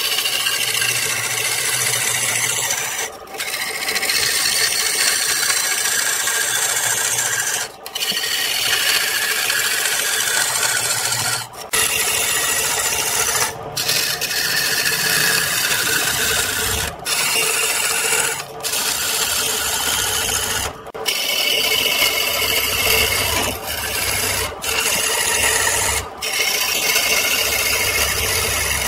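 A turning tool shaving a spinning wooden cylinder on a wood lathe: a continuous rasping hiss of the cut, broken about ten times by brief gaps as the tool lifts off the wood.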